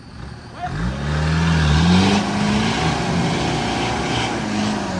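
Off-road 4x4's engine revving hard: the revs climb about a second in, hold high for a few seconds, and drop away near the end.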